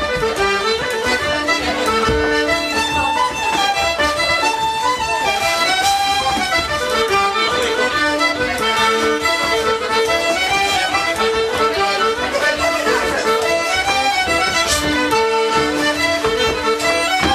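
Irish traditional instrumental music with accordion and fiddle playing a lively tune.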